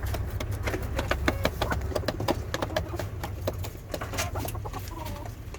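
Lohmann hens clucking in short calls among many quick sharp taps, over a low steady hum.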